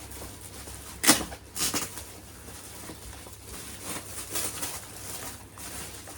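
Rustling and handling of gift packaging, with a sharp crackle about a second in and fainter rustles after it.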